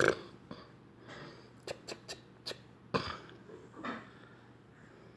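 A baby making a few short throaty, breathy noises, with small clicks between them: a sharp burst about three seconds in and a brief voiced sound about a second later.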